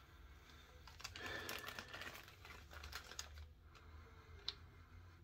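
Faint crinkling and small clicks of a thin plastic zip-lock bag being handled and squeezed in the hands.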